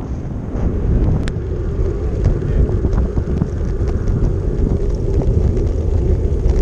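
Wind rushing over the microphone of a handlebar-mounted camera on a road bike riding along a tarmac lane, a steady low rumble with a few faint ticks.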